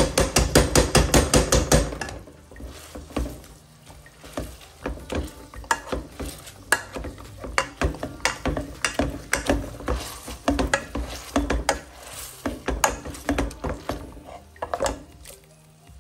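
Metal potato masher knocking on the bottom of a stainless steel pot while mashing fried onions. The knocks come fast and even for about two seconds at the start, then slower and uneven.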